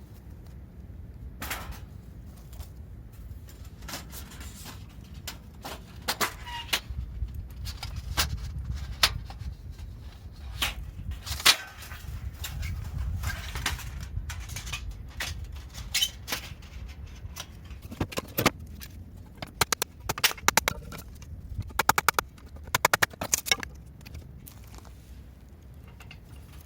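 Irregular knocks and clicks, some with a short ring, over a steady low rumble, with quick runs of clicks near the end.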